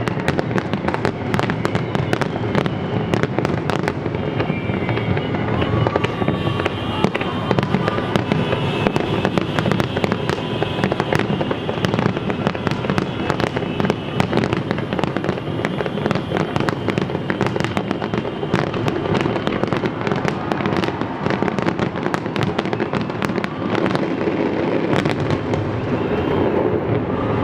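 Fireworks display going off continuously: a dense stream of bangs and crackles.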